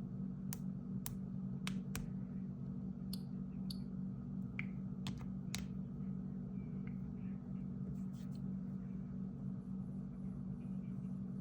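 A series of sharp clicks and taps, about a dozen in the first six seconds and a few fainter ones later, over a steady low hum.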